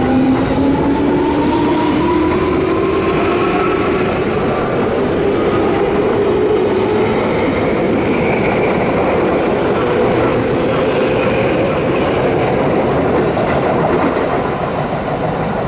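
Electric commuter train running past, its traction motors giving a whine that rises in pitch over the first several seconds and then holds steady, over the steady noise of the wheels on the rails.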